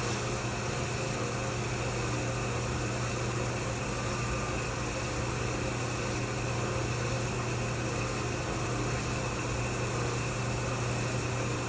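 Royal Master TG12x3 centerless grinder running with a steady low hum and even hiss, its main grinding wheel spinning while the wheel is being dressed.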